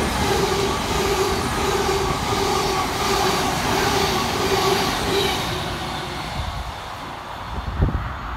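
Thameslink Class 700 (Siemens Desiro City) electric multiple unit passing through the station at speed: a rush of wheel-on-rail and air noise with a hum that pulses repeatedly, fading away after about six seconds. Wind buffets the microphone near the end.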